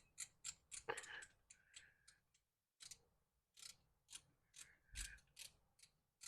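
Ratchet mechanism clicking rapidly, about three to four clicks a second, as it is pumped up and down to drive a screw into a screen door fitting, tightening it. A louder scrape comes about a second in, and the clicking stops briefly about midway.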